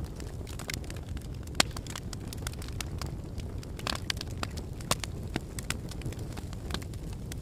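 Wood fire burning in a fireplace: a steady low rumble of flames with irregular sharp crackles and pops, two louder pops about a second and a half in and near five seconds in.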